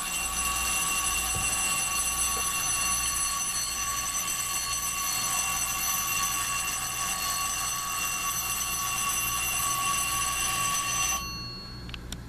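Westclox Baby Ben 11605A key-wound alarm clock ringing its metal bell alarm: a loud, continuous ring that starts suddenly and cuts off about eleven seconds in. A couple of faint clicks follow near the end.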